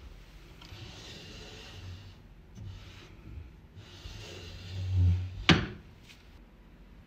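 Wooden slatted cabinet door being opened and closed by hand: two stretches of wood rubbing and dull knocks, then a sharp knock about five and a half seconds in as the door shuts.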